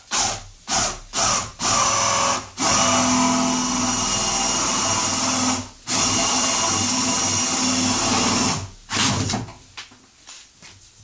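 Cordless drill with a 25 mm spade bit boring a hole through the plastic side of a wheelie bin. It starts with several short bursts on the trigger, then runs in long steady stretches broken by two brief pauses, and dies away near the end.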